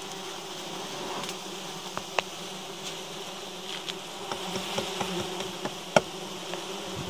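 A colony of giant honeybees buzzing steadily around their exposed honeycomb. A few sharp clicks sound over the buzzing, one about two seconds in and one near six seconds.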